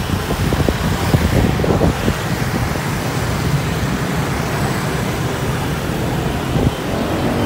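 Steady engine and road noise from riding a motor scooter in dense city traffic, with other scooters running close by.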